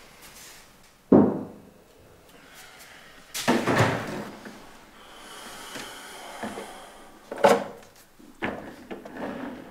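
Kitchen handling sounds at an open refrigerator: a sharp thud about a second in, then a clatter and several knocks as jars and bottles on its shelves are handled.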